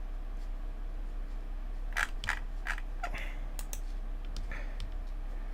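A few short clicks of a computer mouse and keyboard, clustered around the middle, over a steady low electrical hum.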